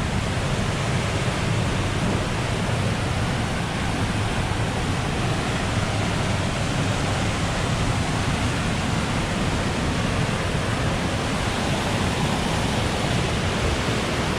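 Waterfall in a rushing creek, a steady, unbroken roar of falling water.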